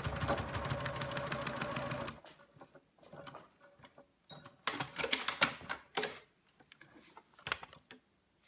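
Domestic sewing machine stitching a short seam through fabric and foundation paper, running fast for about two seconds and then stopping abruptly. Later come crackles and clicks as the paper-backed piece is handled and pulled off the machine.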